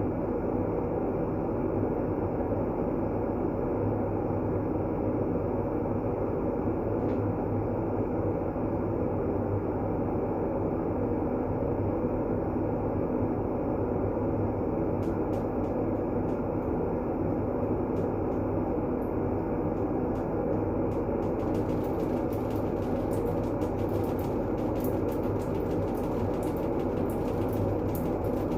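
Steady white noise with a deep, rumbling character, unchanging in level, with a faint crackle of high ticks in the last few seconds.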